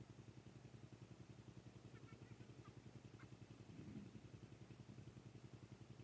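An engine running faintly and steadily with an even, low pulse of about eight beats a second, with a few faint high chirps.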